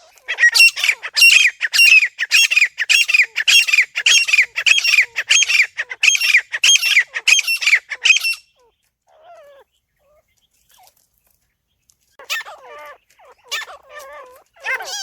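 Francolin (teetar) calling: loud, harsh call notes repeated about twice a second for roughly eight seconds. It breaks off, then starts calling again about twelve seconds in.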